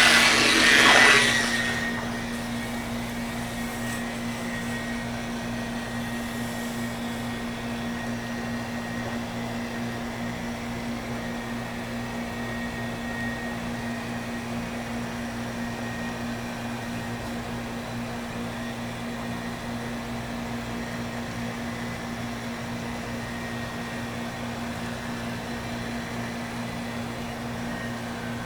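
A Project Source handheld cordless pool vacuum's electric motor running with a steady hum. A loud, noisy rush in the first two seconds as the vacuum goes to work.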